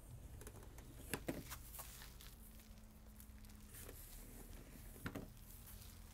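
A few faint, scattered crunches of sneakers stepping on gritty stone, about a second in and again about five seconds in, over a low steady hum of city noise.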